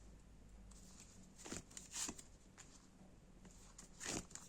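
Tarot cards being drawn and laid down: three brief, soft swishes of card handling.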